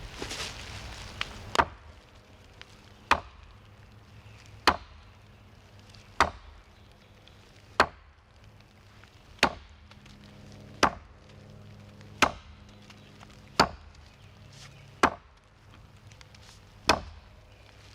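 Axe chopping into a small maple sapling, about eleven steady strokes roughly a second and a half apart.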